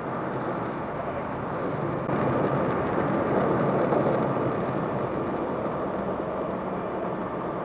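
Automatic car wash air dryers blowing on the car, heard from inside the cabin as a steady rushing noise that swells a couple of seconds in and then slowly eases.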